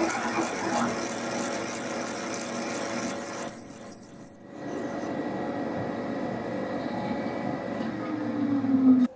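A Bridgeport milling machine spindle runs steadily while a large twist drill cuts into a locomotive crosshead. About three and a half seconds in there is a brief high squeal and a sudden drop in the sound. The machine then runs on steadily as the drill comes out of the hole, and the sound cuts off sharply near the end.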